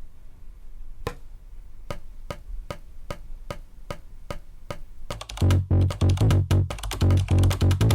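A steady click track at about two and a half clicks a second. About five seconds in, it opens into a loud electronic beat with heavy bass, built from technology-based sounds.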